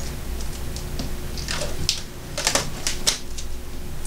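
Fingertips and nails rubbing, scratching and picking at dried liquid latex on the edge of a cured resin tray, giving a few short scratchy clicks, most of them in the second half.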